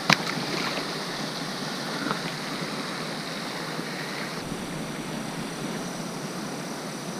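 Steady outdoor hiss of wind and water at the edge of a pond, with one sharp click just after the start.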